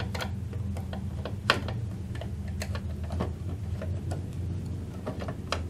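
Screwdriver turning a screw out of a sewing machine's plastic cover: irregular small clicks and scrapes, with one sharper click about a second and a half in, over a steady low hum.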